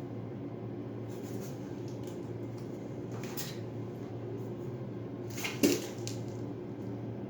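Metal putty knife scraping and clicking against ceramic tile a few times, the loudest a sharp clink about five and a half seconds in, over a steady low hum.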